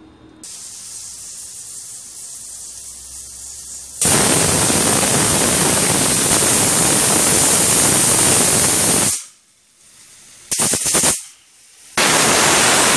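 Pressure cooker whistling: the weight lifts and steam jets out in a loud hiss for about five seconds, followed by a couple of brief sputters and another loud blast of steam near the end. The whistles show that full pressure has been reached, and they are counted to time the cooking of mutton curry.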